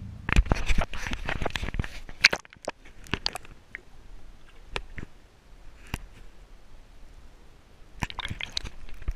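Water splashing and crackling against a camera as it is dipped under the lake surface, then muffled underwater ticks and knocks, with another short burst of splashing near the end.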